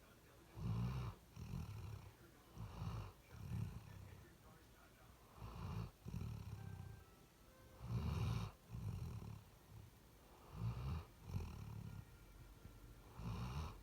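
A sleeping pet snoring: a run of low snoring breaths, many in quick pairs, coming every second or two.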